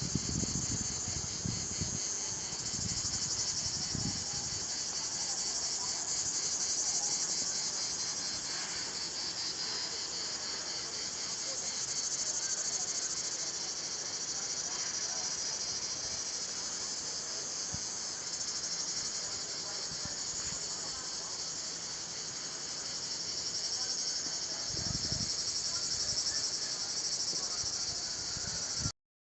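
Dense, steady, high-pitched chorus of insects (cicadas or crickets) buzzing and trilling on and on. A few low thumps come in the first few seconds and again near the end.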